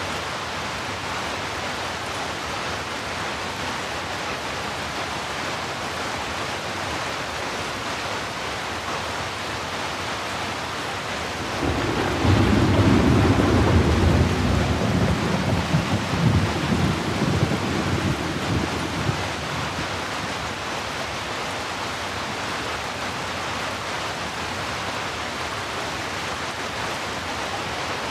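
Steady heavy rain hiss. About twelve seconds in, a loud roll of thunder breaks in and rumbles for several seconds before fading back under the rain.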